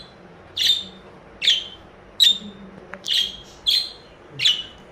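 Pet budgerigar chirping: six short, sharp calls at an even pace, a little under one a second.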